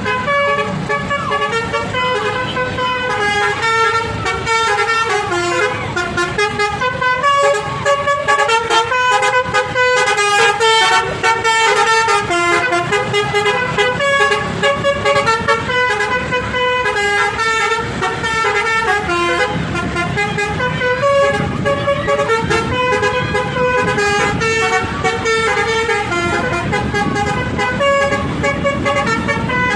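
A Basuri V5 telolet horn on a bus playing a quick melody of short horn notes, stepping up and down without a break. A low vehicle rumble runs underneath.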